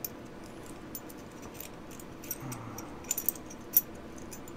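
Light metal-on-metal clicks and clinks as steel Mosin Nagant bolt and trigger parts are handled and fitted together by hand. A few faint ticks come first, then a quick run of three clicks about three seconds in and a sharper one just after.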